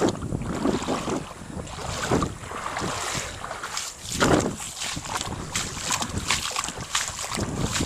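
Feet wading through ankle-deep floodwater, a splashing slosh with each stride about once a second, with wind buffeting the microphone.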